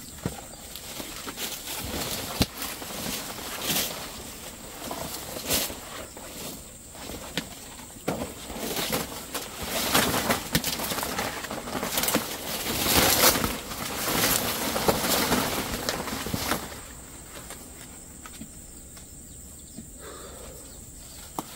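Rustling and crinkling of a plastic fruit bag being pulled over a jackfruit on the tree, with leaves and twigs brushing, in irregular bursts that die down about three-quarters of the way through.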